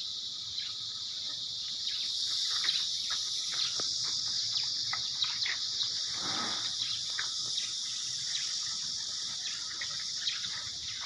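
Steady high-pitched chorus of insects, with scattered short chirps and clicks over it.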